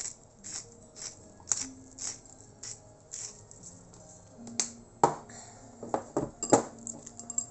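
Hand-twisted pepper grinder grinding black pepper, giving a crisp click about twice a second. It stops after about three and a half seconds, and a few louder sharp knocks follow near the end.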